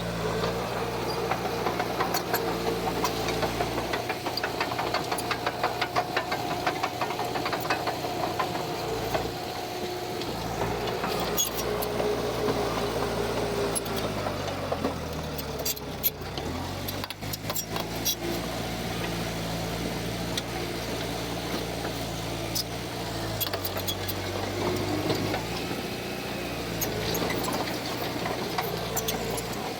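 Heavy diesel engine of an earthmoving machine running, its pitch sinking about halfway through and then climbing back. A fast clatter runs through the first third, and there is one sharp knock in the middle.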